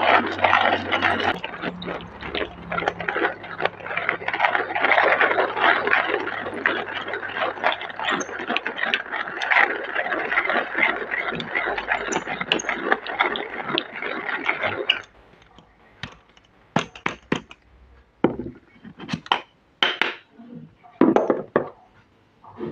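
Manual hand-cranked stainless-steel burr coffee grinder grinding coffee beans: a dense crackling grind that stops about fifteen seconds in. It is followed by scattered knocks and clinks of metal.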